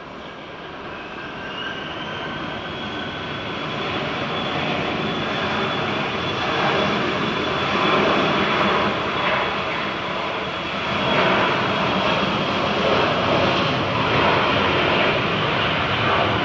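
A business jet's two rear-mounted turbofan engines at taxi power as the jet approaches: a steady high whine over a rushing hiss, growing louder through the first half and then holding.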